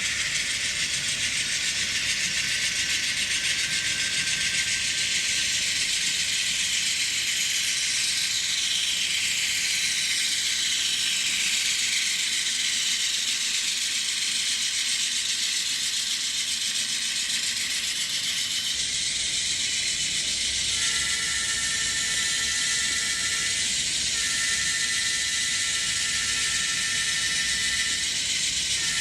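Sound-equipped N scale GE Dash 9-44CW model locomotives running together on the track, with a steady mechanical running and rattling noise. About three-quarters of the way through, a multi-note horn chord sounds in two long blasts.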